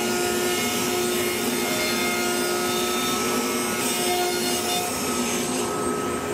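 Router with a roundover bit running steadily, cutting a rounded edge along a sheet of HDPE (high-density polyethylene) plastic.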